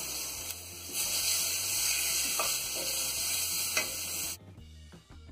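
Ground beef and onion frying in a pot, a loud steady sizzle that swells about a second in, with a couple of clinks as it is stirred. The sizzle cuts off abruptly about four seconds in, giving way to soft background music.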